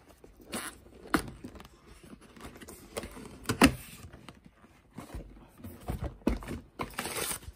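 Cardboard camera box being opened by hand: the lid and inner box are handled and slid out, giving scattered taps, clicks and rubbing, with the sharpest knock about three and a half seconds in and a few dull thuds after it.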